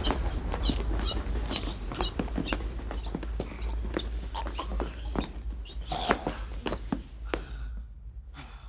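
Scuffling, irregular knocks and clicks of a physical struggle over a steady low rumble, thinning out and fading near the end.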